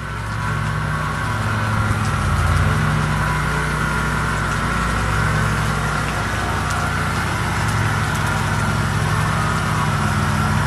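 Pressure washer running steadily as its positive-displacement pump is loaded to build water pressure in an air compressor tank for a hydrostatic test. The sound grows louder over the first couple of seconds, then holds steady.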